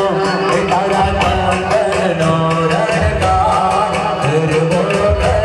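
Garba dance music played loud over a sound system: a fast, steady hand-drum beat under a melody, with a voice singing.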